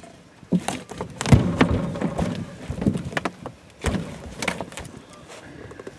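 A blue catfish flopping against a carpeted boat deck while pinned under a shoe: a string of irregular thumps and slaps, the loudest about a second in.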